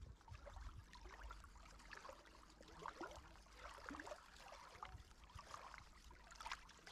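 Near silence, with faint sounds of lake water at the shore and a few small scattered ticks.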